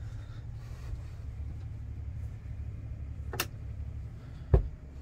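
A steady low mechanical hum, with a sharp click a little past the middle and a louder knock near the end.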